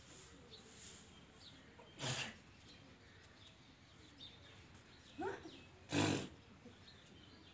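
Three short animal calls over a quiet background: a harsh cry about two seconds in, then a brief rising cry and, just after it, the loudest call near the end.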